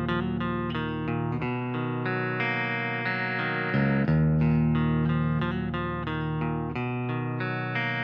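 Guitar music: quickly picked separate notes for the first second and a half, then longer held notes over a steady low bass.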